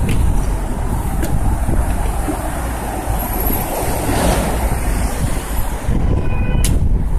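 Wind buffeting a phone's microphone: a loud, steady low rumble, with a short click near the end.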